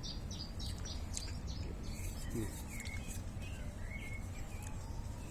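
Small birds chirping: a quick run of short high notes in the first second, then a few scattered lower chirps, over a steady low outdoor background hum.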